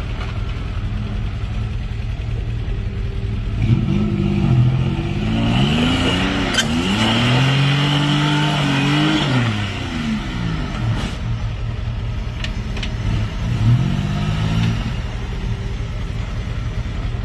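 Straight-axle Toyota 4x4's engine revving up and down as the truck crawls through a mud hole, with the longest rev from about four to ten seconds in and a shorter one near fourteen seconds. A few sharp clicks sound in between.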